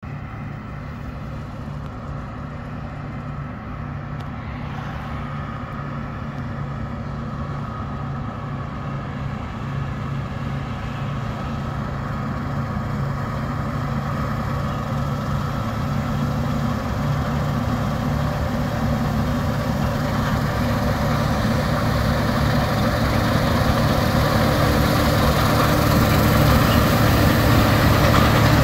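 New Holland CR10.90 combine harvester running at work with its MacDon FlexDraper header, a steady heavy engine hum with machinery noise growing steadily louder as it approaches.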